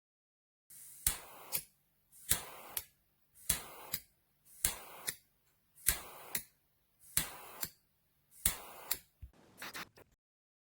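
A butane lighter insert fired over and over: a sharp click, a brief hiss of gas and a second click, seven times about a second apart, then a quick run of clicks near the end.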